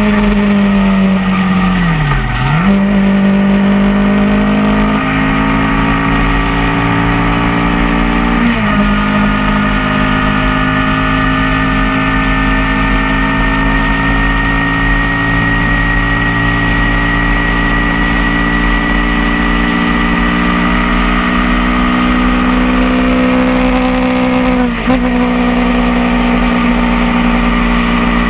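Motorcycle engine running at a steady cruise. Its pitch sags and comes back up about two seconds in, then dips briefly twice more, about a third of the way through and near the end.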